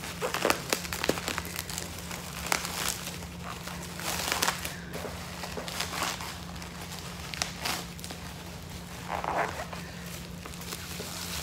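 Bubble wrap crinkling and crackling in irregular bursts as a wrapped doll is handled and cut free with scissors.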